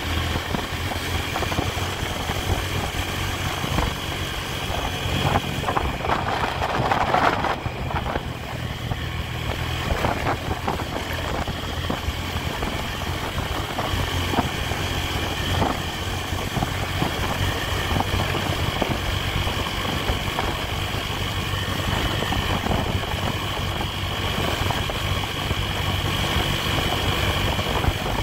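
Honda Tiger's single-cylinder four-stroke engine running steadily while riding, under wind and road noise. About six to eight seconds in, a louder swell of noise rises over it.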